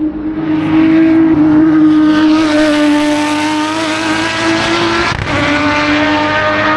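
Race car engine at high revs running up the hill-climb course past the listener. The note holds steady, drifting slightly down, with a brief break about five seconds in before it carries on.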